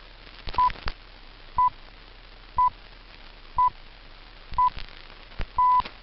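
BBC Greenwich Time Signal 'pips' received on longwave radio: six one-pitch beeps a second apart, five short and the sixth longer, marking the hour. Faint static with sharp crackle clicks runs under them.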